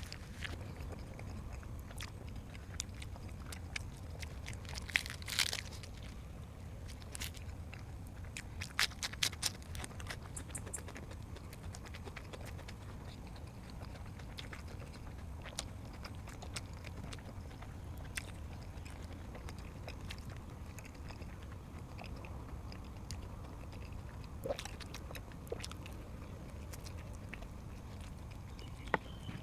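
A person eating close to the microphone: chewing and crunching with scattered sharp clicks, thickest about five seconds in and again around nine to eleven seconds, over a steady low hum.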